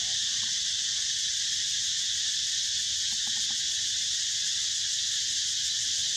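Steady, high-pitched chorus of insects droning without a break, with no distinct calls standing out.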